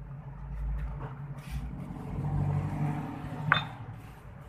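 A motor vehicle's engine running, loudest about two to three seconds in, with a single sharp click about three and a half seconds in.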